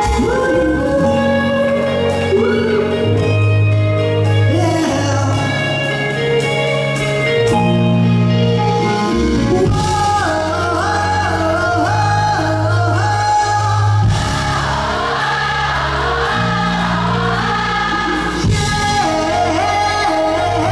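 A live band playing a song with singing, over steady held chords and a bass line.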